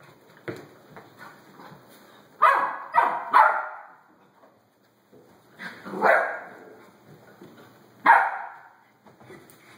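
Dogs barking in play: a bark about half a second in, three quick barks around two and a half to three and a half seconds, then single barks near six and eight seconds.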